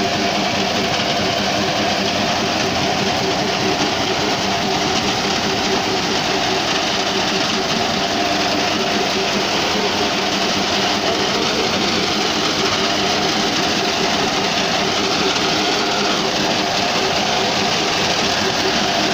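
Tractor engine running steadily under load, driving a front-mounted reaper that cuts standing wheat.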